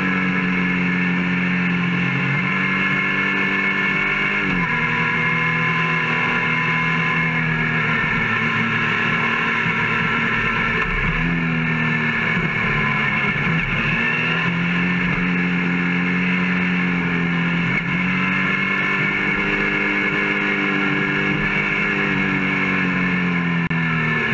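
Motorcycle engine running at a steady cruise from an onboard mount. Its pitch dips and climbs back several times, about every six or seven seconds, as the throttle is eased and reopened or the gears are changed.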